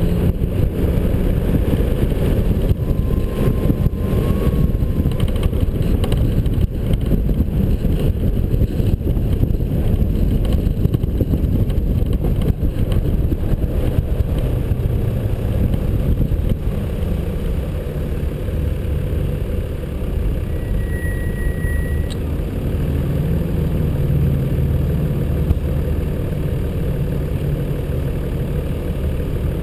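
A 4WD's engine and road noise, picked up by a camera mounted on the vehicle, as a dense steady rumble. In the second half it settles to a steadier engine hum, like idling, and a brief high tone sounds about two-thirds of the way in.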